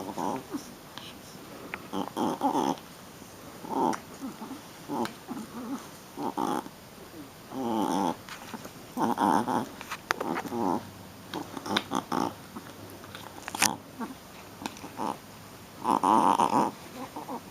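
Shih Tzu puppy making short play growls and grunts in play, about a dozen in a row with short pauses between them.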